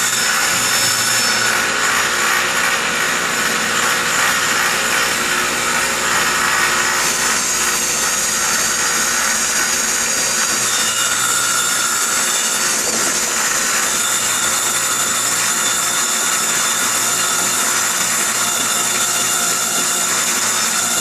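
Table saw running with its blade cutting into a spinning wooden bowl blank, which a drill turns against the blade. The result is a loud, steady whine and cutting noise.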